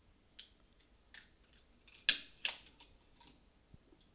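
Precision fibre-optic cleaver being handled: a series of light clicks and snaps from its clamp lid and top clamp lever. The loudest two come about two seconds in, half a second apart.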